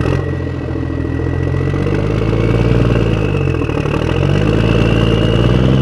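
Engine sound, a running truck engine whose pitch rises and falls twice as if lightly revved, with a faint high whine above it that climbs slightly. It begins with a click at the start.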